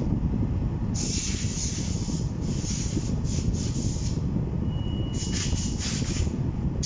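Nissan Sunny's AC blower fan running noisily: a rasping, rubbing noise that comes and goes in stretches of a second or so over a steady low rumble. The noise comes from a dirty blower, which the owner says needs only cleaning, not replacement.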